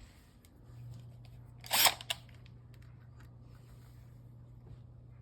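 A sharp crack about two seconds in, with a smaller click just after: the wooden golf tee being snapped off in the hinge's stripped screw hole. A low steady hum runs underneath.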